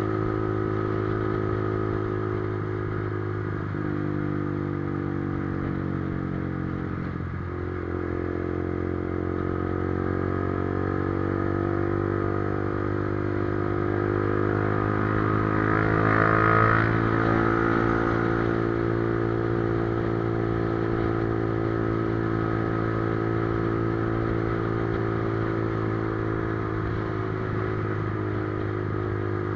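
Motorcycle engine running under way, its pitch dropping a couple of times early on and climbing to a brief louder rev about halfway through, then holding steady.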